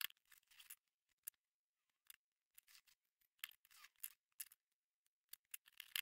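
Faint, irregular small clicks and scratches from fingers handling embossed plastic label tape and pressing the labels onto a painted metal radio front panel.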